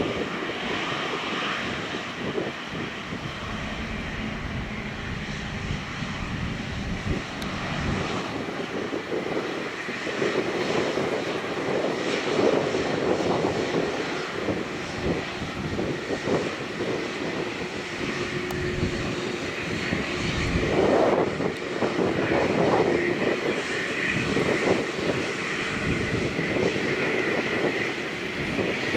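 Boeing 787-9 Dreamliner's twin jet engines running at taxi power, a steady rumble and whine that grows somewhat louder about a third of the way in as the aircraft taxis.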